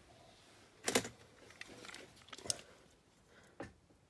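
Die-cast toy models being handled: a few sharp knocks and clicks as they are picked up and put down, the loudest about a second in, with faint rustling in between.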